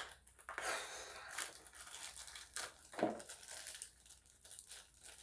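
Packaging of a blind-box pin being torn open and crinkled by hand, in a run of quick rustles and small clicks.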